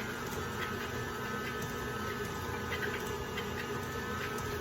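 Electric mixer running with a steady hum, beating pound cake batter as the eggs are mixed a little at a time into the creamed sugar.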